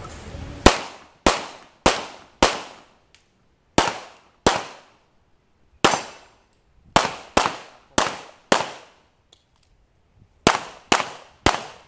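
Pistol shots from a CZ Shadow during a timed defensive-pistol stage: about fourteen shots in quick strings of two to four, roughly half a second apart, with pauses of one to two seconds between strings as the shooter moves to new targets or positions.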